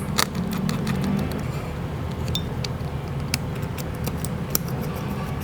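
Small tools clicking and tapping in quick, irregular strokes over a steady low hum, the sound of small-part work at a bench.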